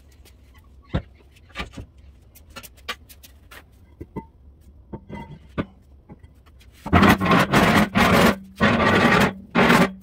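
Scattered light clicks and taps, then, about seven seconds in, four loud harsh scraping bursts over about three seconds, typical of workshop tool work on metal parts.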